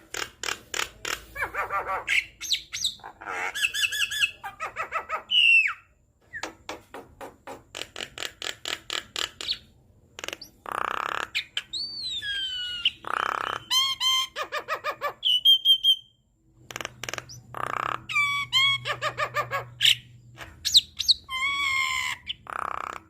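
Javan myna (jalak kebo) singing a busy, varied song: fast trains of clicks, harsh squawks and several gliding whistles, with two short pauses, the longer one about two-thirds of the way through.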